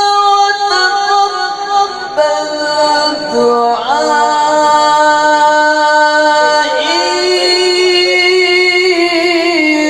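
A man reciting the Qur'an melodically, drawing one syllable out into long held notes that step and glide up and down in pitch.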